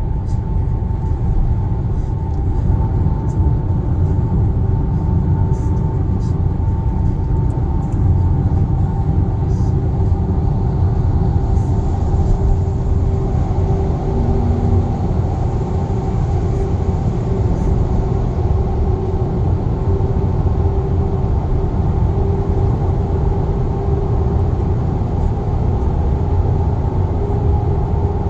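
Steady road and tyre rumble inside the cabin of a Kia Sportage (NQ5) cruising at expressway speed, with a faint steady hum above it.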